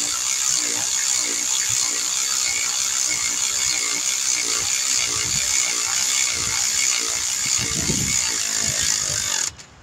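Cordless electric ratchet running steadily with a fast rhythmic whir, driving in the top mounting bolt of a new alternator, then cutting off suddenly near the end.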